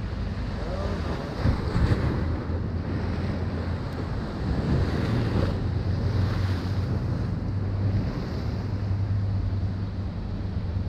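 Ocean surf washing in, swelling and easing every few seconds, with wind buffeting the microphone as a steady low rumble.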